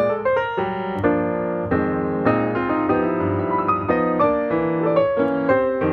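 Background piano music: quick successions of notes with chords held under them.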